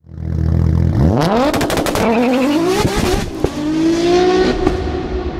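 Car engine idling, then revving up about a second in and climbing in pitch in a few steps like gear changes before holding a steady pitch, with a quick run of sharp cracks as it climbs.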